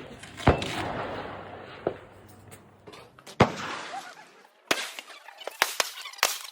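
Rifle shots: two loud shots about three seconds apart, each trailing off in a long echo, with a fainter crack between them and several shorter, sharper cracks near the end.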